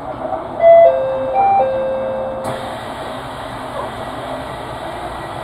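Short electronic chime melody of four held notes, starting about a second in and ending near the halfway point, the last note the longest, over steady background noise.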